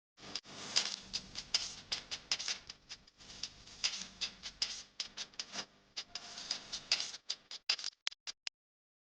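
Hot oil sizzling, with dense crackling and popping as food fries in a pan. It starts suddenly and thins to scattered single pops near the end.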